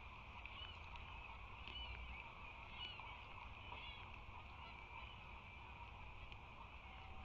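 Osprey giving a few short, high, rising-and-falling chirps spread over several seconds. Beneath them is a steady low rumble, with a few faint ticks.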